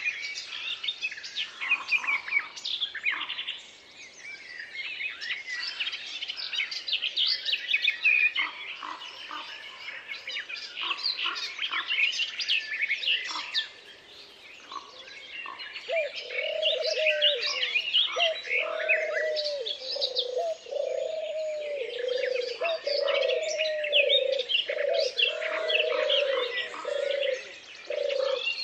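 Woodland birdsong: many small birds chirping and singing, joined about halfway through by a low cooing call repeated about once a second.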